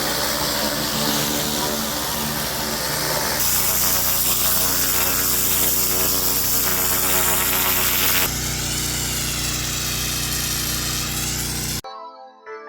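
Gas-engine pressure washer running with the hiss of its high-pressure water spray, in a few short clips that cut abruptly from one to the next. Near the end it stops suddenly and soft piano music begins.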